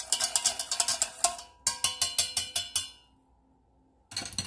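Wire whisk beating gravy in a stainless steel saucepan, a fast run of ringing metal-on-metal clinks against the pan in two spells over about three seconds. A brief clatter follows about four seconds in.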